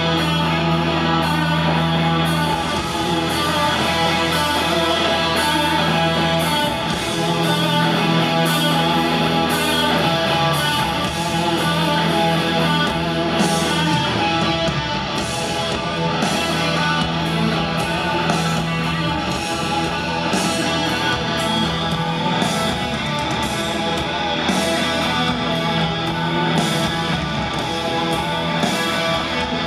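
Live band playing through a concert PA: electric guitars over bass guitar and drums, with no singing.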